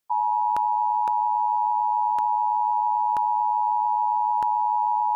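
Emergency Alert System attention signal: a steady two-tone alert sound (853 and 960 Hz together) carried over FM radio, with a few brief clicks over it. It announces the emergency message that follows, here a severe thunderstorm warning.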